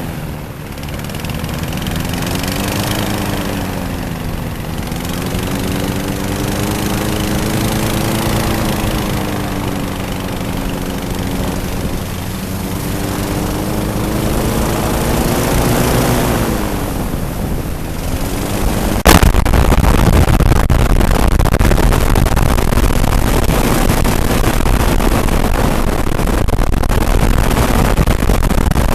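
Twin-engine airboat's engines revving up and down, the pitch wavering, as the throttle is rocked to break the boat free and get it moving. About two-thirds of the way through, a sudden loud rush of noise takes over.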